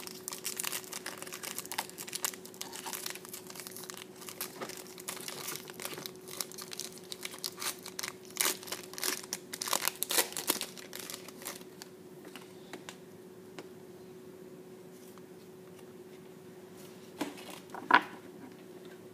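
Foil wrapper of a trading-card pack being torn open and crinkled by hand: a dense run of crackles for about the first ten seconds, then quieter handling. One short sharp tap near the end is the loudest sound.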